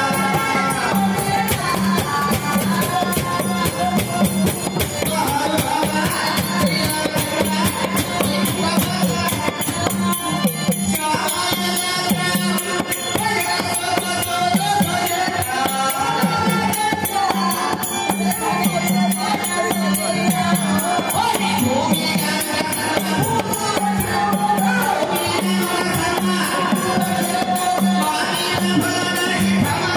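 Live accompaniment for a leather shadow-puppet play: voices singing over harmonium and drums, with busy percussion clicking throughout.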